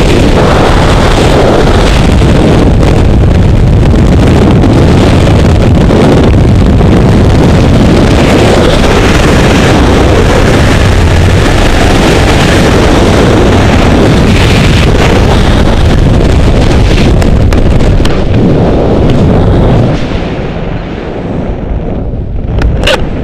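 Freefall wind buffeting a helmet-mounted camera's microphone, a loud, steady rush. About three seconds before the end it drops in level and loses its hiss, with a couple of sharp clicks near the end.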